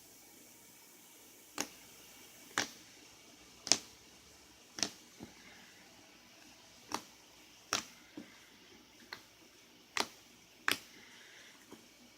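Homemade slime being squeezed and pressed, giving sharp wet clicks and pops, about a dozen at irregular intervals of roughly a second.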